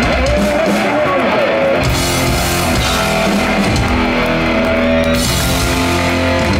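Heavy metal band playing live: distorted electric guitar with bass and drums, cymbals crashing in about two seconds in.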